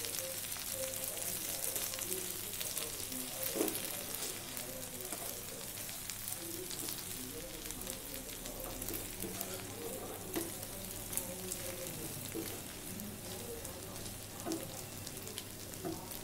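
Chicken pieces and fried onions sizzling in coconut oil in a non-stick frying pan as they are stirred with a wooden spatula, with occasional soft scrapes and knocks of the spatula on the pan. The chicken is cooking dry in the oil and its own juices, with no water added.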